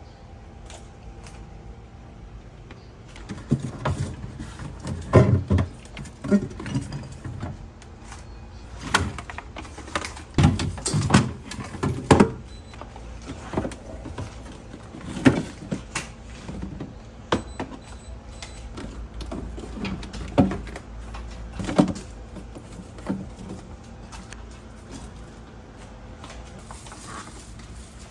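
Irregular knocks, clicks and light clatter of things and fridge parts being handled, busiest in the first half.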